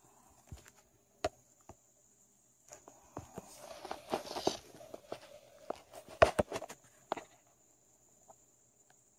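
Handling noise from a phone camera being moved about close to the floor. There is a sharp click about a second in, then about four seconds of rustling and rubbing with scattered knocks, the loudest a quick cluster of sharp knocks about six seconds in, all over a faint steady high hiss.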